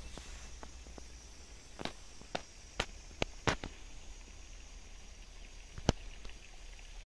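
Faint outdoor field ambience with a steady low rumble, broken by about six sharp clicks or taps between two and six seconds in.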